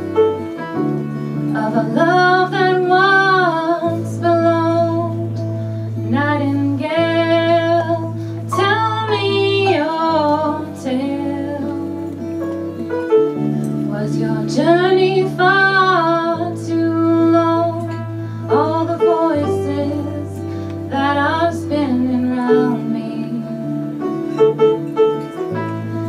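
A young woman singing a slow song with a live band of keyboard and two guitars, in sung phrases with vibrato over held chords that change about every three seconds.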